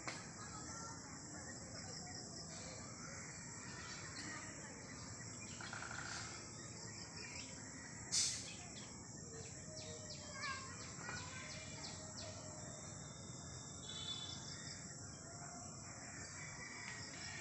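Many small birds chirping at dusk over a steady high-pitched drone of insects. A single sharp click stands out about eight seconds in.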